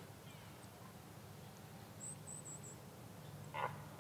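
Faint forest ambience at nightfall with a steady low rumble. A brief high-pitched chirp sounds about halfway through, and a short rustling sound comes near the end.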